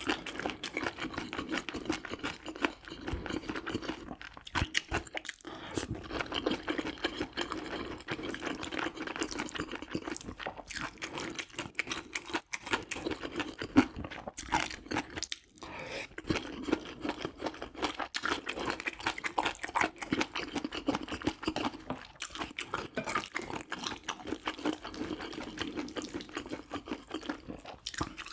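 Close-miked eating sounds: steady wet chewing with many small crunchy clicks.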